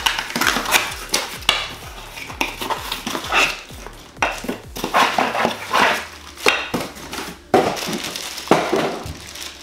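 Clear plastic wrapping crinkling and rustling, along with cardboard scraping, as plastic-wrapped glassware is worked out of a small box. It comes as a run of irregular crackles and light knocks, with no steady rhythm.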